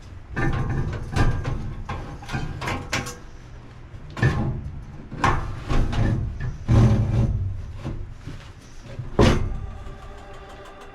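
Furnace parts being handled: a string of irregular knocks and clunks, at times several a second, the strongest near the end.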